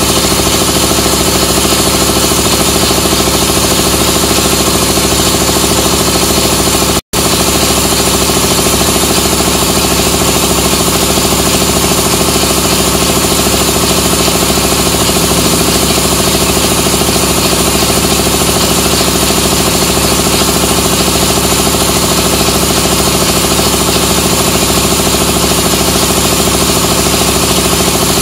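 Gihon portable air compressor with a 2.2 kW motor running steadily and loudly, measuring about 93 dB on a sound level meter held close by. The sound drops out for an instant about seven seconds in.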